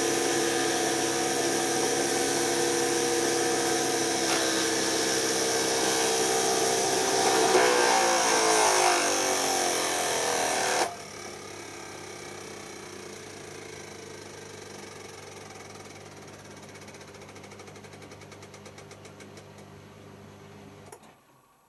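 Electra washing machine's brushed motor running with a steady whine and hum. It grows louder and rougher for a few seconds, then cuts out abruptly about eleven seconds in: the motor's commutator is damaged and the motor is failing. A quieter hum with faint fine ticking runs on until a click near the end stops everything.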